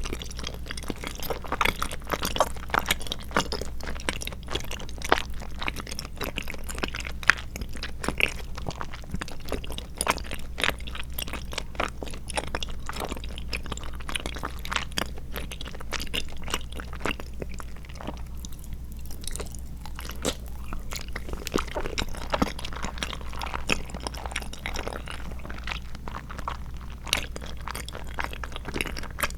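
Close-miked chewing of tapioca pearls and milk jelly: a dense, steady run of small wet clicks and smacks, with a brief lull about two-thirds of the way through.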